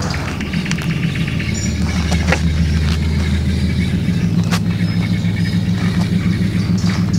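An engine running steadily, a low hum with a few sharp clicks over it.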